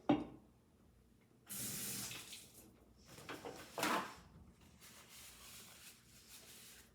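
A knock, then water running and splashing from a kitchen tap in three spurts, the last one fainter.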